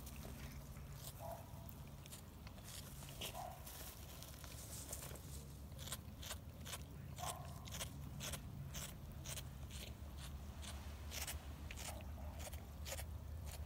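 Cats biting and chewing: irregular crunchy clicks, few at first and several a second from about halfway, over a low steady hum.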